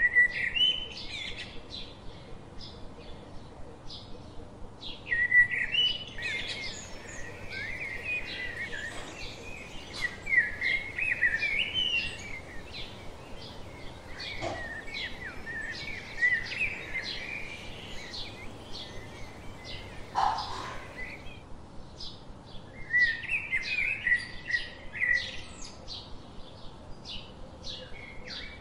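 Birds singing and chirping: a steady run of short, high chirps, with bouts of fast warbling song that come and go, and a single lower call about two-thirds of the way through.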